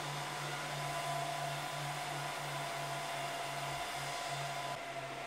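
Dell PowerEdge R710 rack server's cooling fans running fast during the power-on self-test, a steady rushing air noise with a low hum. The hiss eases slightly near the end.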